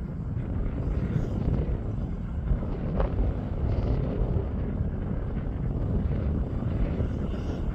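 Steady low rumble of distant heavy engines, mixed with wind buffeting the microphone, with one short knock about three seconds in.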